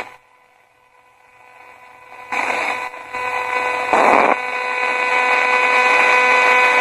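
Spirit box (a 20-125 radio) giving out static after a click. The hiss swells up about two seconds in and carries steady whining tones, with a louder burst of noise about four seconds in.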